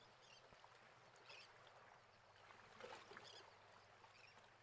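Near silence: faint outdoor ambience with a few faint, short, high chirps.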